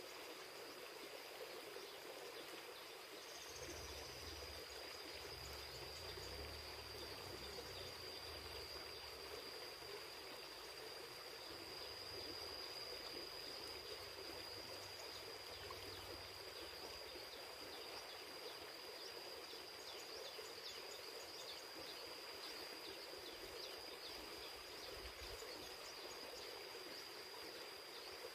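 River water running steadily, with a continuous high-pitched insect whine over it. A low rumble joins in about four seconds in and fades out around the middle.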